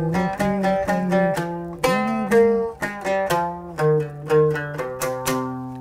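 A handmade oud played with a plectrum: a melodic phrase of quickly plucked single notes, some sliding slightly in pitch, ending on a lower held note.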